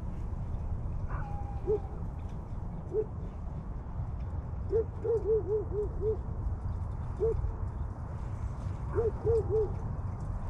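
Animal hooting calls: short arched hoots, single at first, then a quick run of five or six and a run of three near the end, over a steady low rumble.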